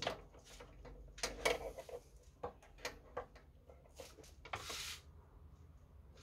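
Hand working by feel deep in a car engine bay among hoses, wiring and plastic clips: scattered small clicks, knocks and rustles, with a longer rushing noise about four and a half seconds in.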